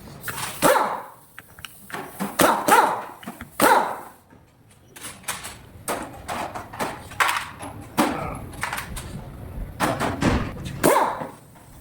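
A dog barking several times in short separate barks, with sharp metallic clicks and clinks between the barks.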